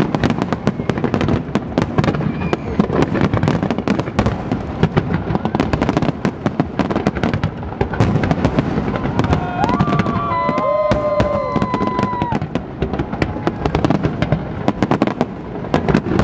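Fireworks display: a dense, unbroken barrage of aerial shell bursts and crackling bangs. A brief wavering tone rises over it about ten seconds in.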